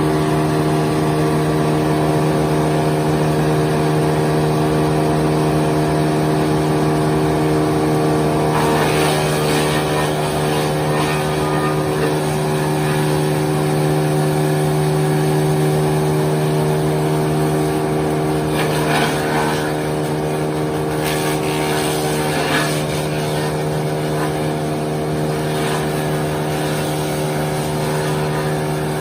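Mobile wood chipper's engine running at a steady speed, a constant drone, with several spells of harsher noise over it, about a third of the way in and again after the middle.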